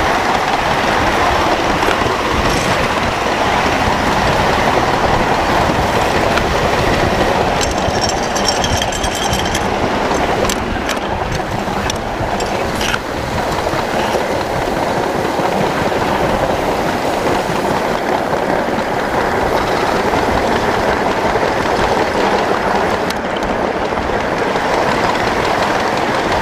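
1-inch-scale Little Engines Pacific live steam locomotive and riding car running on miniature track: a steady rumble of wheels on rail with a few clicks. A brief high-pitched squeal comes about eight seconds in.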